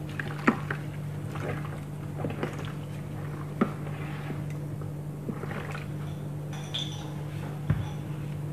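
Raw chicken pieces being rubbed and squeezed by gloved hands in a plastic basin with a little vinegar: wet squelching and sloshing with scattered soft clicks. A steady low hum runs underneath.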